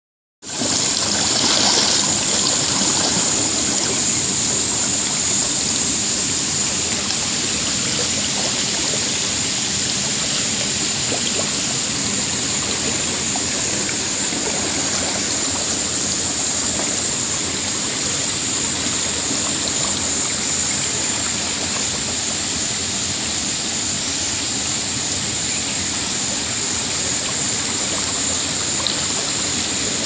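Steady rushing of waterfall water pouring over rocks into a pool.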